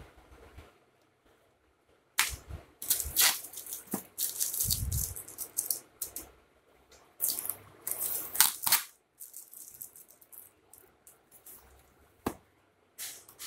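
Cardboard and plastic packaging being handled and opened by hand, giving bursts of crinkling and rustling with sharp clicks, in two busy spells and a single click near the end.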